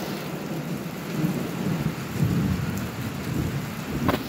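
Steady rain with a low rumble, and one short sharp click about four seconds in.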